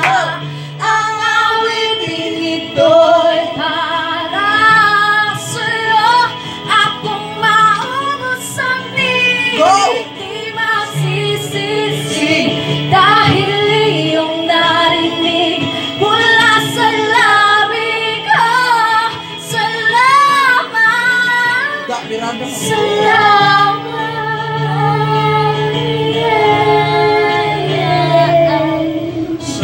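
Women singing a Tagalog worship song into microphones over a karaoke backing track, with long, sliding sung notes.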